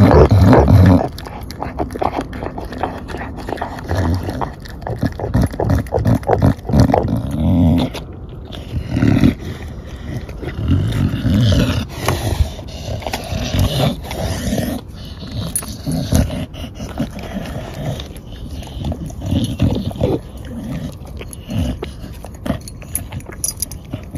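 Dog chewing and tearing at raw whole black chickens, with irregular bursts of wet crunching and biting through meat and bone. It is loudest in the first second.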